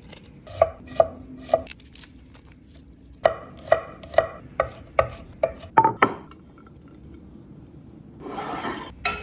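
Chef's knife chopping onion, ginger and garlic on a cutting board: sharp, evenly spaced strokes, about two a second, in two runs with a pause between them. A short scraping sound follows near the end.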